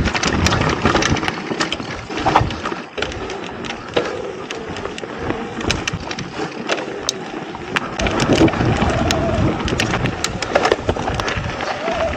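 Mountain bike rolling fast down a dirt and rock singletrack: a steady rush of tyre noise and wind on the microphone, broken by frequent sharp clicks and rattles as the bike hits rocks and roots.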